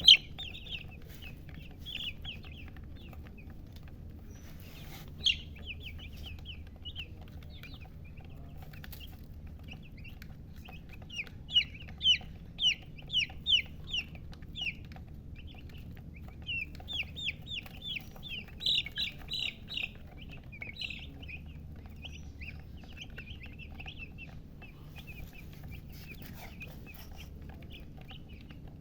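Domestic baby chicks peeping: short, high, falling notes in quick runs that come and go, loudest in two bursts in the middle. A steady low hum lies underneath.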